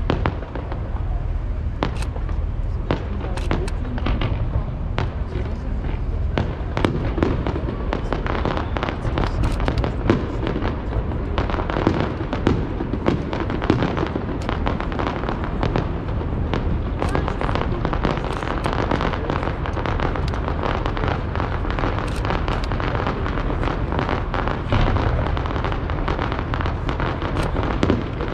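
Aerial fireworks shells bursting in a fast run of sharp bangs and crackles.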